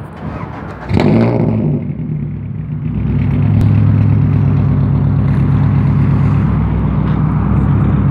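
Toyota Celica 2ZZ-GE inline-four running through a 3-inch straight-pipe exhaust: a short burst of revs about a second in that falls away, then a steady, loud idle.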